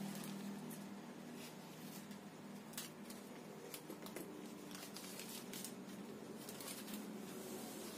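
Scattered crinkling and rustling of a black plastic packing bag being pulled from a cardboard box and handled, with a few light knocks of handling. A faint steady low hum runs underneath.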